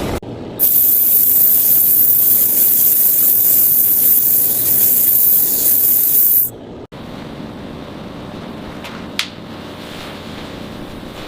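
Compressed air spraying in a loud, high-pitched hiss for about six seconds, then cutting off. A quieter steady noise follows, with two brief sharp sounds.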